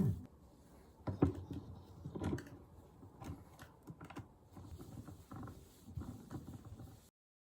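Scattered light clicks and knocks of tools and small parts being handled during a motor swap on an electric skateboard, irregular and fairly quiet. The sound cuts to dead silence about seven seconds in.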